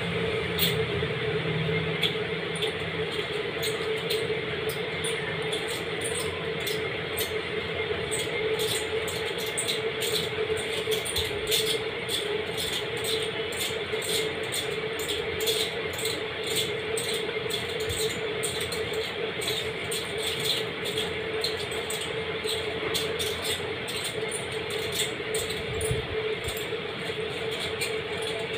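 Close-up eating sounds: chewing and mouth noises, heard as many small irregular clicks, over a steady background hum.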